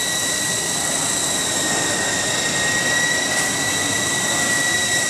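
Battery-powered radio-controlled coaxial helicopter with an AH-64 Apache body in flight: its electric motors give a steady high whine with one unchanging tone over the whir of the twin rotors. The battery is not fully charged, so it flies weakly, close to the floor.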